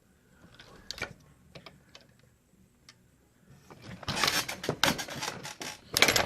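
Brass cases and parts of a progressive reloading press being handled and cycled: a few light metallic clicks, then about two seconds of dense rattling and clatter that ends in a sharp click near the end.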